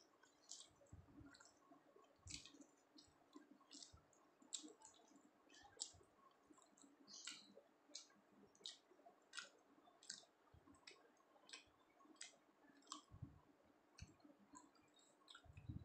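Faint close-up chewing of soft paratha and chickpea dal, with wet mouth smacks and lip clicks coming about once or twice a second.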